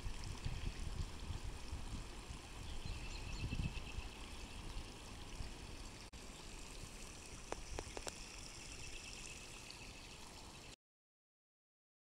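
Homemade sump-pump pond fountain running: water spraying up and splashing back onto the pond surface with a steady hiss. The sound cuts off suddenly near the end.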